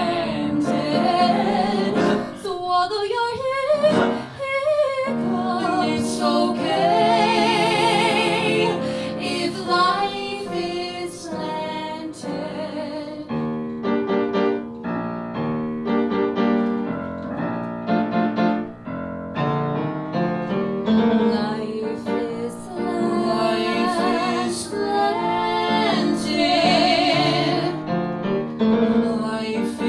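Music: a woman singing held notes with vibrato over piano accompaniment.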